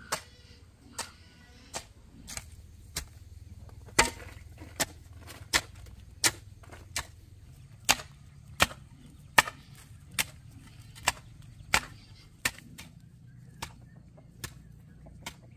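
Steady rhythmic chopping: a blade or tool striking about once every three-quarters of a second, some twenty sharp strikes in a row.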